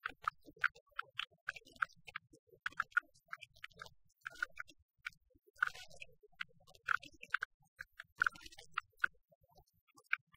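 A quick, uneven run of sharp ticks and clicks, about three a second at times, with a short falling glide a little past the middle.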